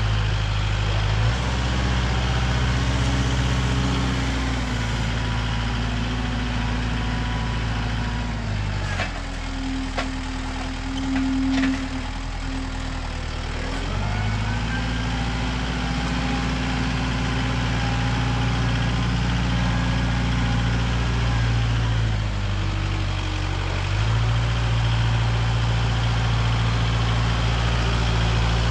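Heavy engine running at a steady speed. Its pitch steps down for a few seconds about a third of the way in and again near the end, then comes back up, as the load on it changes. A few sharp knocks sound near the middle.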